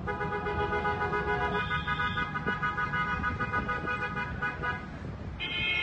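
A car horn is held in one long blast of nearly five seconds, then sounds again in a second shorter honk near the end, over low street noise.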